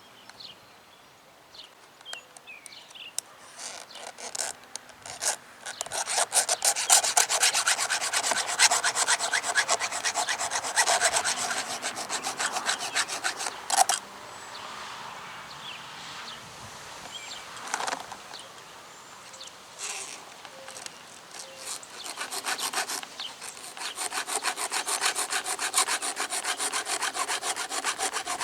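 A 3/16-inch round file rasping across the cutter teeth of an electric chainsaw chain, sharpening it by hand in quick, repeated strokes. After a few scattered scrapes the filing starts in earnest, eases off for a while midway, then picks up again.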